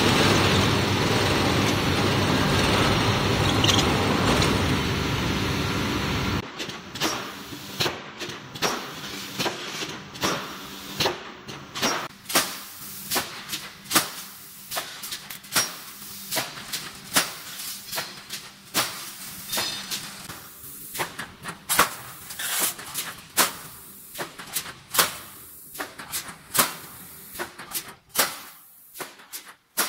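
Pneumatic reinforcing-mesh welding machine working. A loud steady noise runs for about six seconds, then the sound turns to sharp repeated clacks from the welding heads and feed, irregular at about one or two a second.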